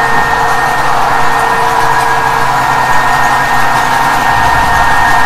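Electric motor driving a flywheel and generator head at full speed: a steady mechanical running noise with a constant high whine.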